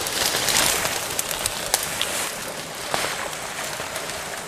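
Leaves and branches of dense undergrowth rustling and snapping as someone pushes through it, with many short crackles over the steady hiss of light rain.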